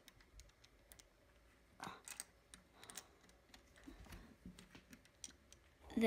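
Faint scattered clicks and taps of small plastic Lego pieces being handled and pressed into place on a build.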